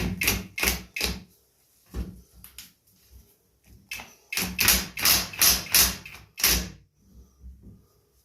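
Power impact wrench hammering in a series of short trigger bursts on a stubborn bolt: four quick bursts, a pause, two more, then a run of six.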